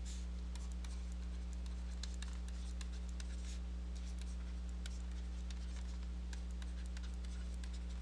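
Steady low electrical hum, with faint scattered ticks and clicks over it.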